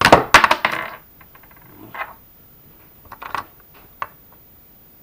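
Lego plastic bricks clattering as part of the model is knocked down: a loud rattle of clacks in the first second, then a few scattered clicks.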